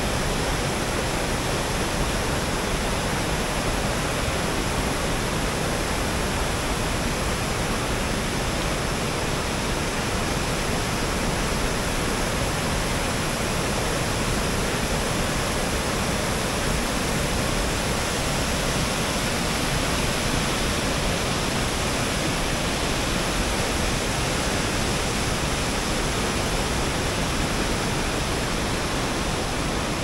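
Ryuzu Falls, a cascading waterfall in heavy flow: water rushing steadily and loudly with no break or change.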